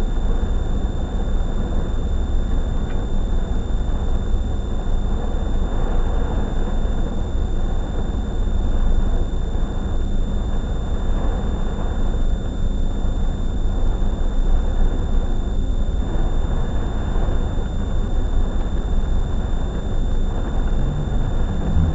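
Storm wind buffeting a car, heard from inside the cabin as a steady, heavy low rumbling rush, with a faint steady high whine throughout.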